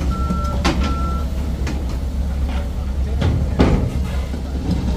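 A heavy truck's reversing alarm beeps steadily and stops about a second in, over the engine's low, steady running, with a sharp knock about three and a half seconds in.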